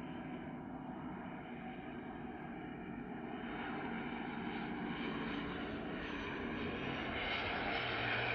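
Dornier 328 twin-turboprop landing, its engines and propellers growing steadily louder as it comes in, with a high whine rising above the drone about halfway through.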